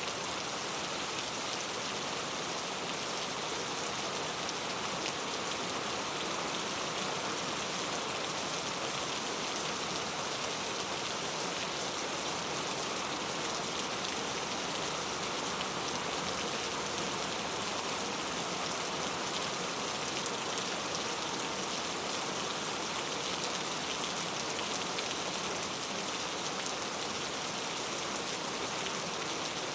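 Heavy rain falling steadily, a dense even patter of drops striking a surface, with no let-up or change in strength.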